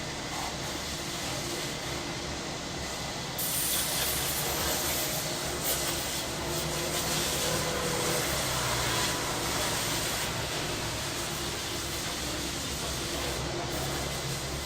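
Summer cicadas buzzing in a steady, hissing chorus that swells louder about three seconds in, over a low, steady rumble of city traffic.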